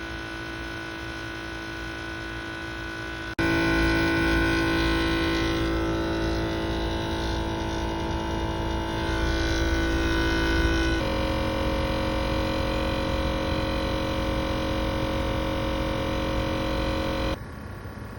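Faulty HVAC compressor giving off a loud, steady electrical hum. The hum jumps louder about three seconds in, shifts in tone around the middle, and drops off sharply near the end.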